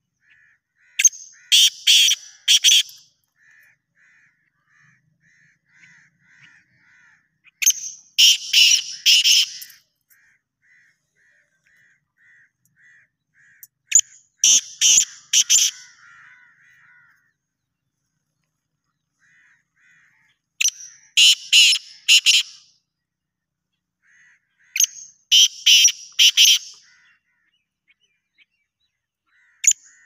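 Black francolins calling: loud bouts of four or five quick notes, one bout about every six seconds, with a fainter run of short, even notes in between.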